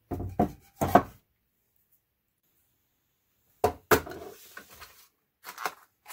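Handling knocks and clatter: a pneumatic brad nailer being moved and set down on a wooden workbench, then a plastic blister pack of staples being picked up. The knocks come in two clusters, at the start and about three and a half seconds in, with a few lighter knocks near the end.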